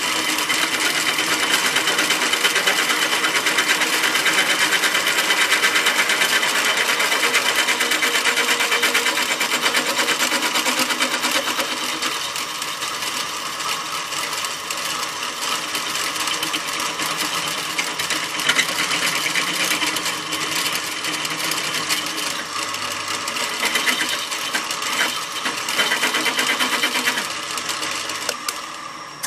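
Drill press running and its bit boring into a clamped steel piece as the feed lever is pulled down. It makes a steady machine noise with a fast, even chatter, which falls away at the very end.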